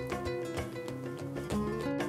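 Background instrumental music: quick plucked-string notes over held bass notes.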